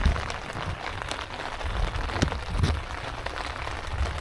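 Rain falling harder, drops hitting the tent and ground in scattered sharp taps over a steady hiss, with some low rumbling underneath.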